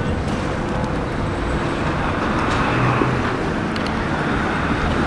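Jet boat running at speed on the water, its engine and churned wake making a steady, loud rushing noise.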